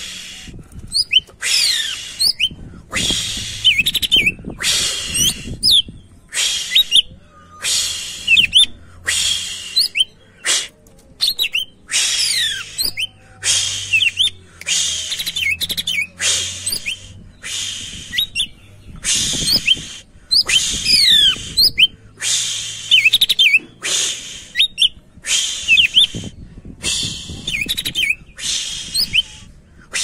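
A caged male leafbird (cucak ijo) singing without pause: loud, high-pitched phrases of quick sweeping whistles, about one a second with short gaps between.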